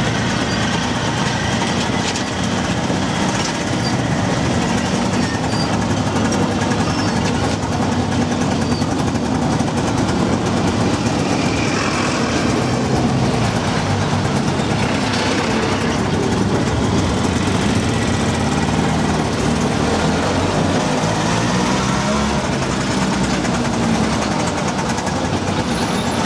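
Auto rickshaw's small engine running steadily on the move, heard from inside its open-sided cabin, with road noise and the sound of trucks alongside. Its pitch rises and falls with speed in places.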